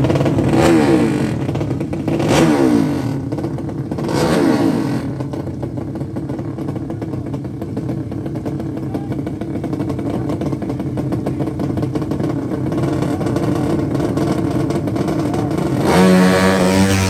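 Drag-racing motorcycle engine revved in three sharp blips about two seconds apart, then running steadily. It is revved hard again near the end.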